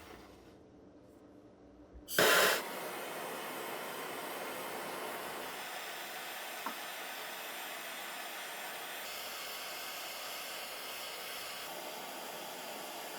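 A brief loud burst about two seconds in, then a steady hiss of air or spray that changes tone slightly twice near the end.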